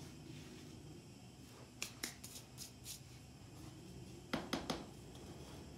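Faint, scattered clicks and taps of small objects being handled: a few light ones about two seconds in, then three sharper clicks in quick succession a little past four seconds.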